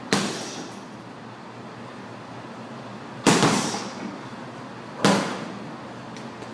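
Boxing gloves punching a Life Fitness heavy bag: three separate hard punches, one at the start, the loudest about three seconds in and another about five seconds in. Each punch is a sharp smack followed by a brief echo.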